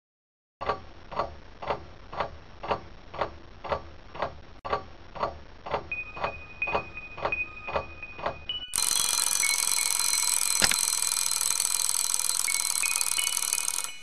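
Alarm clock ticking about twice a second, then its bell ringing continuously from about nine seconds in.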